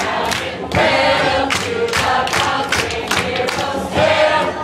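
Loud dance music with a steady beat and many voices singing together, a dance-floor crowd joining in with the song.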